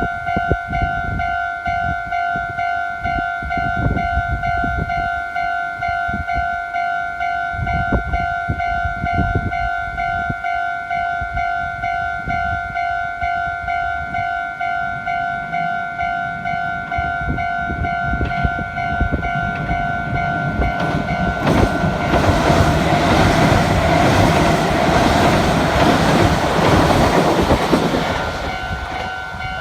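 Japanese railway level-crossing alarm ringing its rapid, repeating electronic ding, about two strokes a second. About twenty seconds in, an electric train rushes through the crossing, its noise swelling to drown the alarm and easing off near the end.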